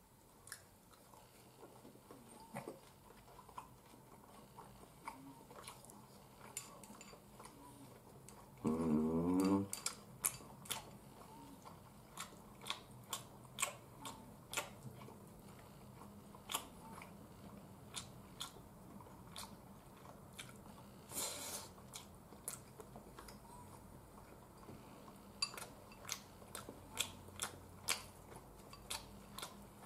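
A person eating quietly: soft chewing with scattered small clicks and taps of wooden chopsticks against a ceramic bowl. About nine seconds in, a short hummed "mm" from the eater is the loudest sound.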